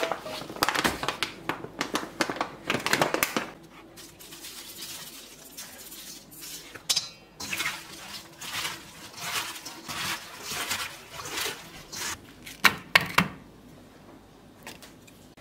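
Cut napa cabbage leaves being tossed by hand with coarse salt in a stainless steel bowl: crisp rustling and crackling, in spells. Two sharp knocks come near the end.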